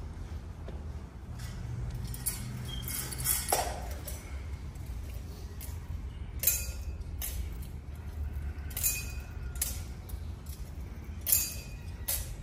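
Metal thurible (incense censer) being swung on its chains, the chains and lid clinking with short metallic rings, mostly in pairs about every two and a half seconds with each swing.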